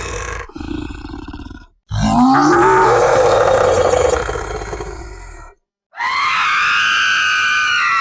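Horror scream sound effects played one after another with short silent gaps between them. About two seconds in, a voice slides upward from a low groan into a strained yell and fades out. Near the end comes a high-pitched, sustained scream.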